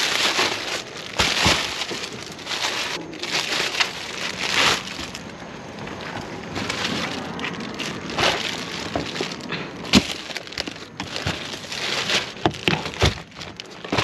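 Plastic bags of oranges rustling and crinkling as they are handled and packed between plastic baskets, with several sharp knocks and clicks, the loudest about ten seconds in.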